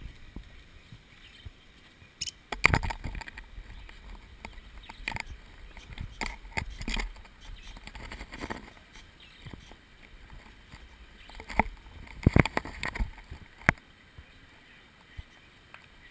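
Irregular clusters of sharp clicks and knocks close to the microphone as a parakeet pecks at seed held in a clothespin on the camera stick, with low handling rumble in places.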